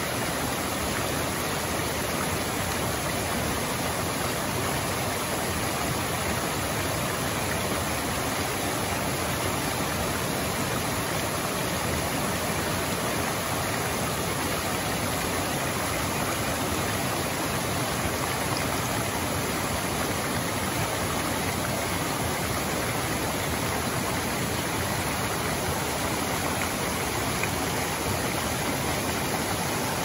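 Mountain stream rushing over rocks below a small cascading waterfall, a steady, even rush of water.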